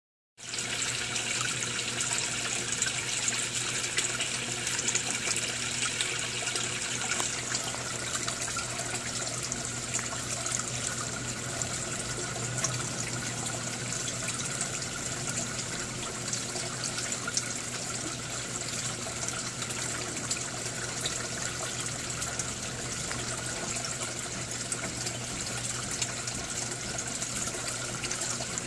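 Water in a koi pond splashing and trickling steadily, with a low steady hum underneath.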